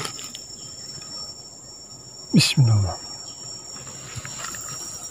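Steady high-pitched insect drone, with a loud swish and a short falling-pitched sound about halfway through as a spinning rod is cast out.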